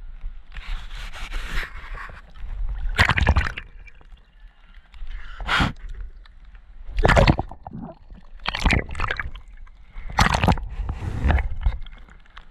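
Pool water sloshing and lapping right at the microphone, in uneven bursts every second or two.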